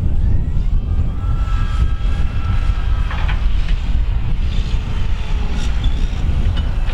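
Fendt 724 tractor's six-cylinder diesel engine running hard under load, pulling a five-furrow plough up a steep bank: a steady deep rumble with a faint whine above it and a few sharp clicks and knocks.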